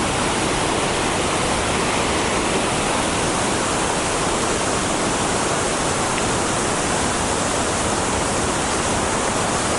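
Yudaki waterfall pouring down: a loud, steady, even rush of falling water.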